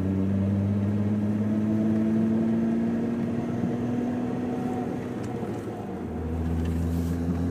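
Mk3 Jetta VR6 driving: a steady engine and road drone whose low note drops away briefly and returns near the end, with a couple of faint clicks. The clicks are the intermittent clicking from the driver's front wheel, which the owner suspects comes from a bad CV axle or wheel bearing.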